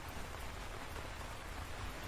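Steady rain, a continuous hiss of falling drops with faint individual drop ticks through it, over a steady low rumble.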